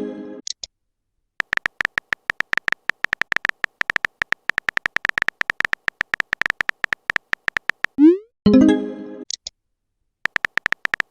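Rapid phone keyboard typing clicks for about six seconds. Then a short rising swoosh of a message being sent, then a brief pitched chime of a message notification. The typing clicks start again near the end.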